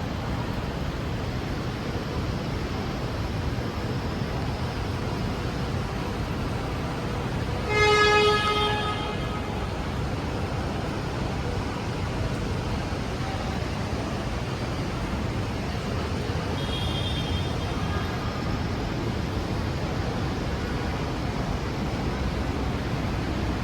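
Steady city street traffic noise. A car horn honks once, loud and about a second long, about a third of the way in, and a fainter honk sounds past the middle.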